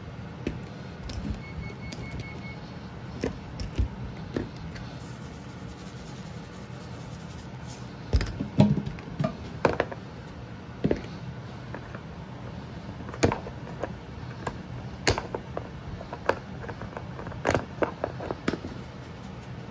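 Kitchen handling noises: scattered clicks and knocks of plastic seasoning shaker bottles being handled and set down on a countertop, over a steady low hum.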